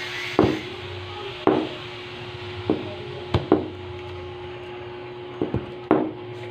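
About eight sharp knocks at uneven intervals, some in quick pairs, over a steady hum and background hiss.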